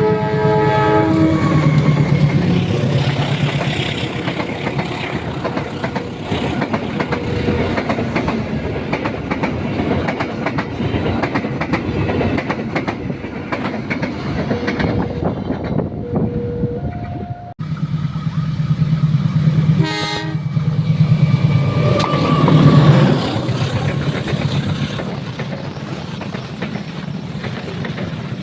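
Trains passing at speed, wheels clacking rhythmically over the rail joints, with a horn sounding at the start and again briefly about fifteen seconds in. About seventeen seconds in the sound cuts abruptly to another passing train with a deep, steady engine drone.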